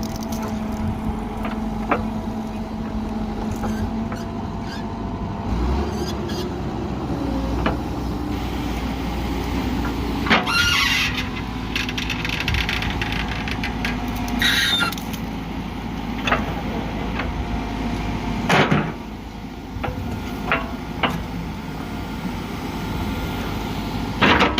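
JCB backhoe loader's diesel engine running steadily, heavier from about a quarter of the way in, with three short high squeals of metal on metal and a few sharp clanks.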